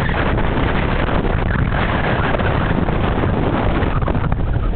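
Strong wind buffeting the camera's microphone in a loud, steady rumble, over the wash of choppy water.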